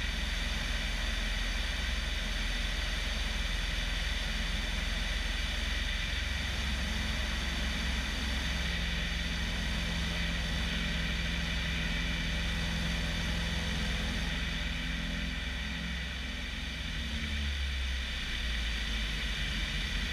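Bellanca Decathlon's 150 hp Lycoming engine and constant-speed propeller running steadily in flight, heard from outside on the wing strut with airflow rushing past. The engine's pitch shifts a little partway through, and the sound dips slightly in level a few seconds before the end.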